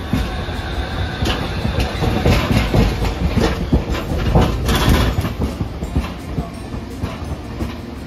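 Hiroden 800-series streetcar (car 809) rolling slowly past at close range: a low rumble with repeated knocks from its steel wheels over the track joints and points. The knocks are loudest about two to five seconds in, then ease off.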